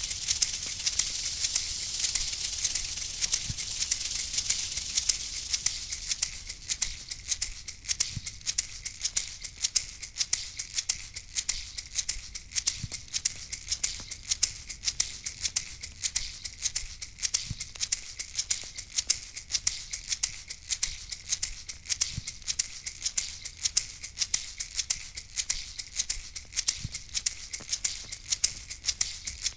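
A hand rattle shaken in a steady, even rhythm, with a hiss fading out over the first few seconds and a faint low thud every four to five seconds.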